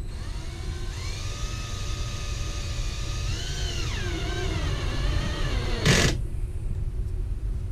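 Cordless drill driving a roofing screw into the wall: a steady motor whine whose pitch rises and then drops about four seconds in, ending with a short, loud burst about six seconds in.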